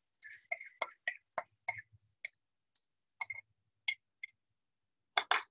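Light, irregular clicks and taps of a spatula against the bowl and wok as chopped chili is scraped into the wok, about two a second, with a quick double knock near the end.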